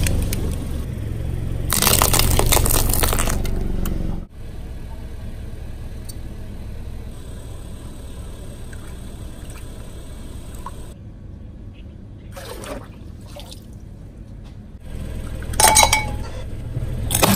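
A car tyre rolling over plastic blister packs of candy, crunching and crackling over the engine's low hum, which stops suddenly about four seconds in. Then water pouring and splashing with light glass clinks, and near the end the car's hum returns with a few sharp clicks.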